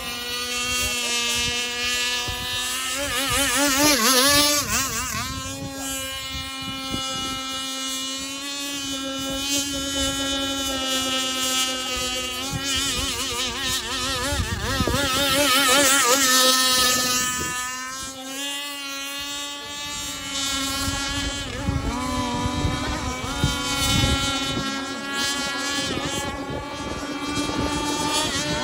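RC speedboat motors running flat out, a continuous high whine whose pitch wavers and jumps as the hulls skip across the water. It grows loudest as a boat passes, about four seconds in and again around sixteen seconds.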